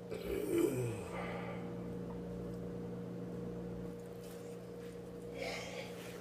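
A man burping once, a short low gurgling belch about half a second in, followed near the end by a shorter breathy noise, over a steady electrical hum.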